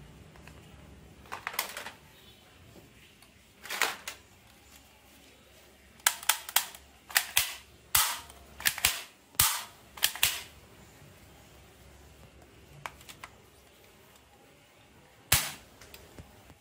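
Plastic toy pistol firing a string of shot sounds, about a dozen sharp bangs in all. A few come singly, most in a quick run between about six and ten seconds in, and one more comes near the end.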